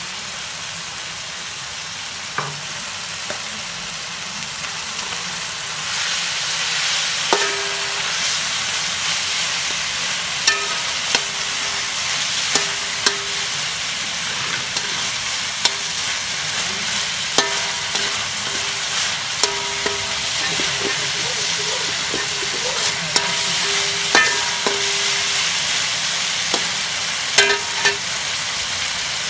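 Pork and ginger sizzling in a steel wok while a metal spatula stirs and scrapes, its strikes on the wok ringing briefly about a dozen times. The sizzle gets louder about six seconds in.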